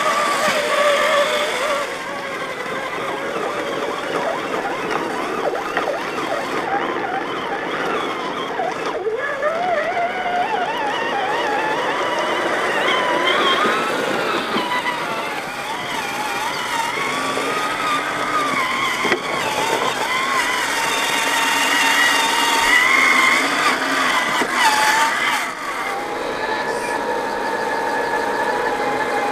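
Electric motors and gearboxes of 1/10-scale RC crawler trucks whining, the pitch rising and falling with the throttle, with a couple of abrupt changes.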